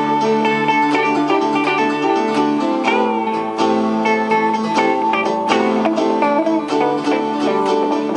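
Live instrumental jam of electric keyboard and electric guitars, with quick picked guitar notes over held chords.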